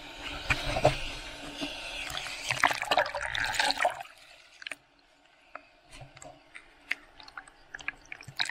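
Ocean water sloshing and splashing against a waterproof camera housing at the surface, with many sharp crackles. About four seconds in it drops suddenly to a muffled quiet with scattered small clicks and ticks, as water washes over the camera.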